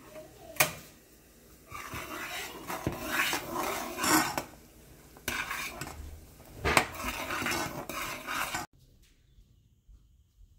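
Metal spoon scraping and clinking in a metal saucepan as thick chutney is stirred and scooped out. A sharp click, the stove knob being turned off, comes about half a second in. The scraping stops abruptly about two seconds before the end.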